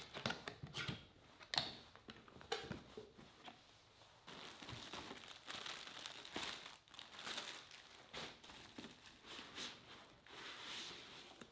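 A cardboard box being opened and unpacked: short taps and scrapes of the box flaps for the first few seconds, then plastic bags and wrapping crinkling steadily as the wiring and packing are pulled out.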